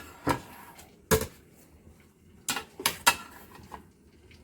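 Kitchenware being handled: about five sharp clinks and knocks of pans or utensils, spread over the few seconds.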